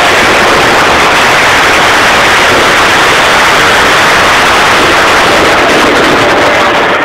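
Dense fireworks and firecrackers going off without a break, blending into a steady, loud wall of noise that pushes the camera's microphone to its limit.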